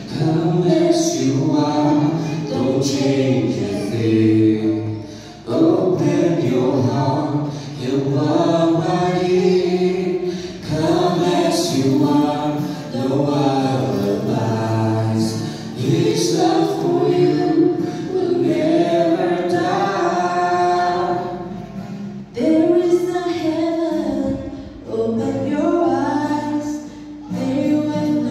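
A man and a woman singing a gospel hymn together into microphones, in sung phrases a few seconds long with short breaths between them.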